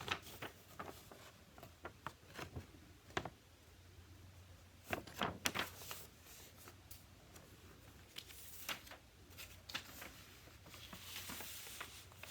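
Faint, scattered clicks and rustles of handling, with a small cluster about five seconds in and a soft hiss near the end, over a low steady hum.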